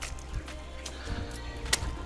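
Background music with sustained tones, with a few sharp clicks over it.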